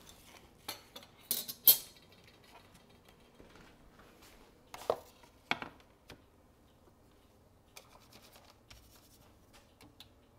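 Kitchenware being handled: a quick cluster of sharp clinks about one and a half seconds in, the loudest of them, then two knocks around five seconds in, followed by only faint light taps.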